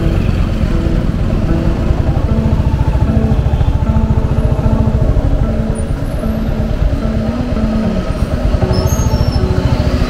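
Royal Enfield Hunter 350's single-cylinder engine running through its stock exhaust at low speed, a fast, even beat of exhaust pulses.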